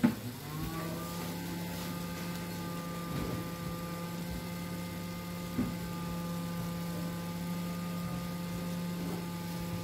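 A click, then electrical equipment starting up: a steady hum that rises in pitch over the first second and then holds, with a fainter high whine above it. A soft knock about five and a half seconds in.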